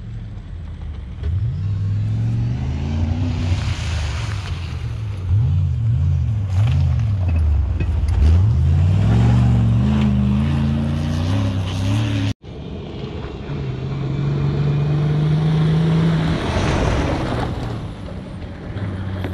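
4x4 SUV engines driving an off-road course, the engine pitch rising and falling as the throttle opens and closes. A brief dropout about two-thirds through, after which a steadier engine note holds for a few seconds.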